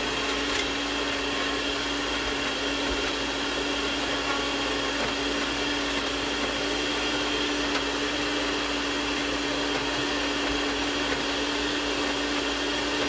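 Small smoothie-maker blender motor running steadily with an even whine, grinding ogbono seeds in red palm oil with crayfish.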